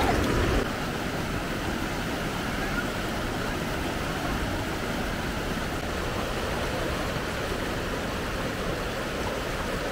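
Swift river water rushing steadily, an even, unbroken noise.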